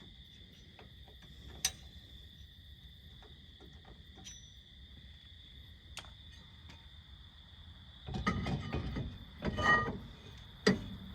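Steady high chirring of crickets throughout, with a few sharp clicks. About eight seconds in, a louder scraping rush lasts roughly two seconds, like a drum brake being spun by hand with its shoes lightly dragging, the brake drag just set after the parking-brake adjustment.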